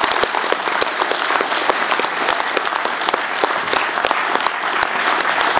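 An audience applauding: many hands clapping in a dense, steady patter.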